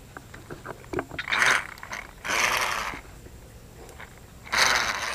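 A fishing reel being worked in three short scraping, whirring bursts about a second apart.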